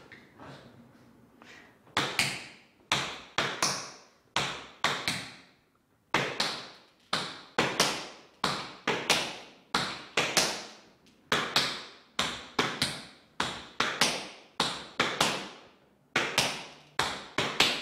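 Tap shoes' metal taps striking a wooden floor in a steady rhythm of flaps, each a quick brush and step that lands as a close pair of sharp taps, starting about two seconds in.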